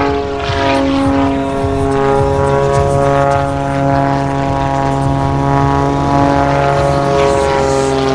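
Propeller airplane's engine and propeller running, a steady pitched drone with a stack of harmonics that holds an even pitch.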